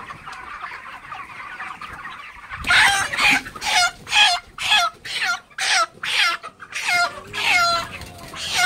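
Flock of white broiler chickens chattering softly; from nearly three seconds in, a chicken being grabbed squawks loudly and over and over, about two cries a second, each falling in pitch: distress calls of a bird being caught.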